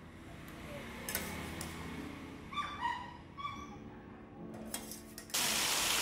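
A few light clinks and a run of short, high chirping calls over a low room hum. About five seconds in, whole scored fish frying in hot oil in a pan starts to sizzle loudly.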